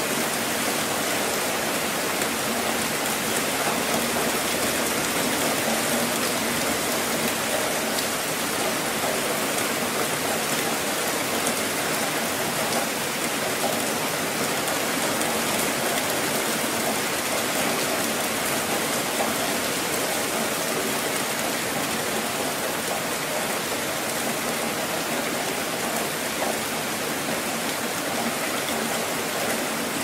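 Steady rain falling: an even hiss of many drops that holds at the same level without a break.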